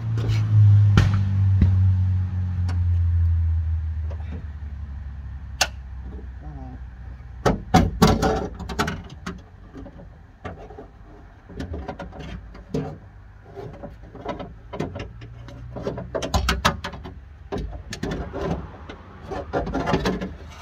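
Metal clanks, rattles and knocks of a van door's manual window winder mechanism being worked loose and out through the door's openings, in irregular clusters through the second half. A low rumble, the loudest sound, fades away over the first four seconds.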